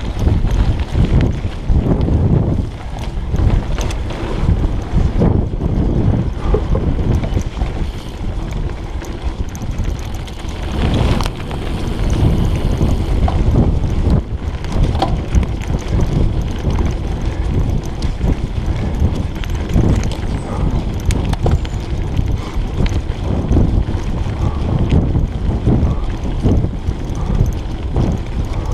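Wind buffeting a chest-mounted GoPro's microphone as a mountain bike rolls over a dirt forest trail. The tyres rumble on the dirt, and the bike knocks and rattles over bumps throughout.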